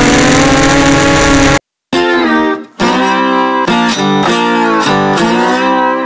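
Motors and propellers of an MJX Bugs 6 racing drone whining steadily in flight, cutting off suddenly after about a second and a half; after a brief gap, guitar music starts and carries on.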